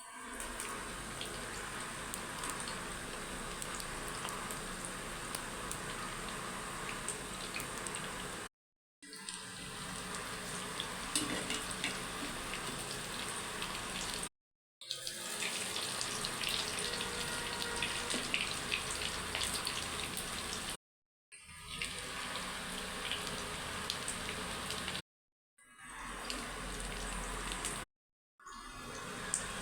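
Water running from a tap and splashing in a sink, heard in several short clips that each start and stop abruptly, with scattered small clicks and clatters.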